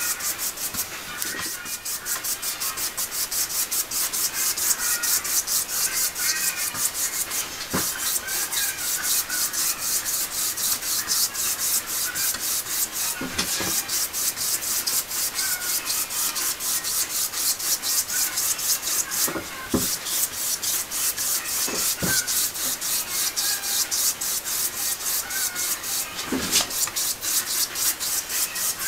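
Cloth pad rubbing over pigment-coated paper on a wooden board in quick, rhythmic back-and-forth strokes, several a second, with an occasional light knock.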